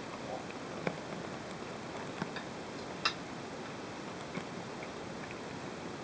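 Someone eating from a plate with a metal spoon: a few light clicks of the spoon against the plate, the sharpest about three seconds in, over a steady background hiss.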